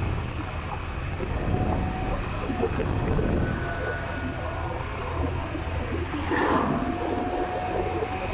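Scooter engine running steadily at low road speed, with wind noise on the microphone and a brief rush of noise about six and a half seconds in.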